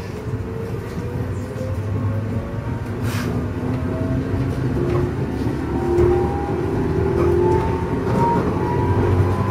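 Electric train accelerating away from a station, heard from inside the front of the train: the traction motor whine rises steadily in pitch over the rumble of the wheels on the rails, with a single click about three seconds in.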